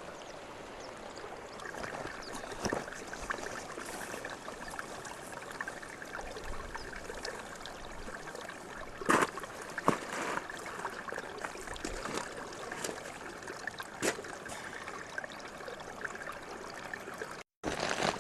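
Shallow water trickling steadily between rocks at a lake's edge, with a few sharp knocks around the middle. The sound breaks off briefly near the end.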